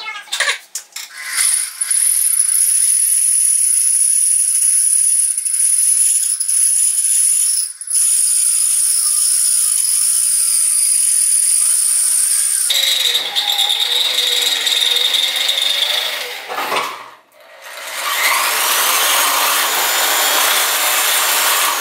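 Corded electric drill boring a hole freehand through a metal plate clamped in a bench vise, the bit grinding into the metal with a steady high whine. After a few short trigger blips at the start, it runs continuously. The pitch drops about 13 seconds in, the drill stops briefly near 17 seconds, then starts again and runs to the end.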